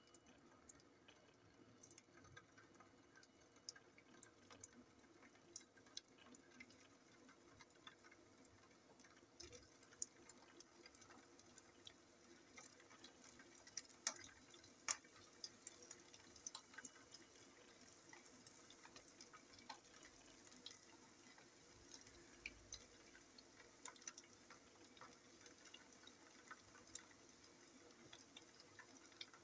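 Köfte patties frying in hot oil in a pan: a faint sizzle with many scattered pops and crackles, the sizzle getting thicker in the second half as the pan fills.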